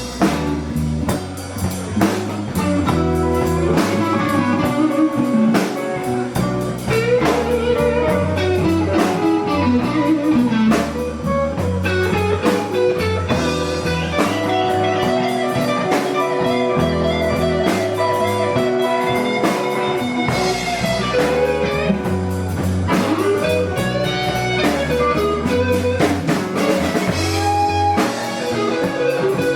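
Live slow-blues band in an instrumental break: a guitar plays a solo line with bent notes over bass guitar and a drum kit.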